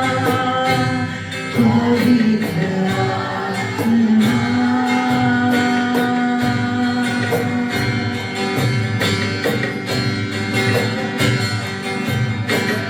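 Live worship band music: guitar and sustained instruments over a steady beat, with a voice singing a long held note partway through.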